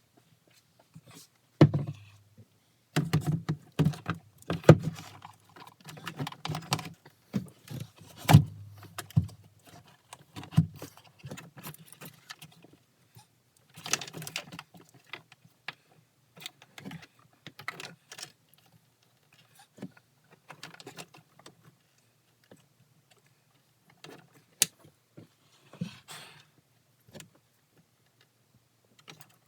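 Irregular clicks, knocks and light metallic rattles of hand tools and metal parts being handled during work on a Sea-Doo personal watercraft's battery wiring, busiest in the first ten seconds.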